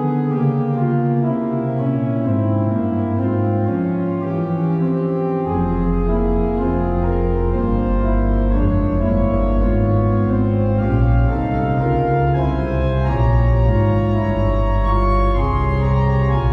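Organ playing a fugue: several voices of held notes moving against each other, with deep pedal bass notes coming in about five and a half seconds in.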